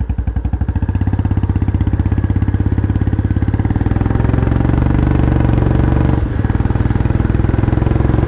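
Royal Enfield Bullet motorcycle engine running as the bike pulls away and rides on, heard through a microphone mounted on the bike. Its beat quickens over the first second and then runs steadily, with a brief dip about six seconds in.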